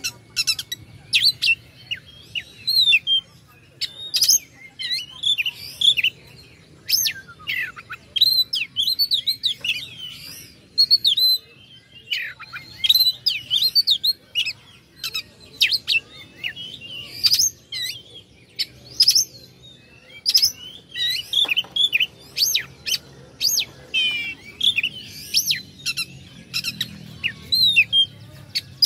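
Oriental magpie-robin (kacer) singing without a break: a fast, varied stream of whistled notes, sharp rising and falling glides and clicking calls.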